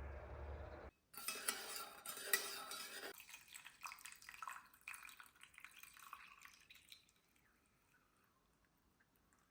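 Dishes and utensils clinking and clattering in quick, irregular knocks, loudest in the first two seconds after starting and fading out about seven seconds in. A steady low rumble runs before a cut about a second in.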